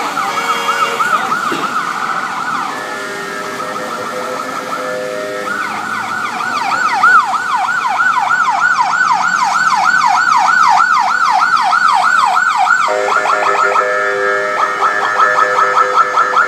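Ambulance siren in a fast yelp, rising and falling about three times a second. Its pattern shifts a couple of times, and lower steady tones join in under it near the end.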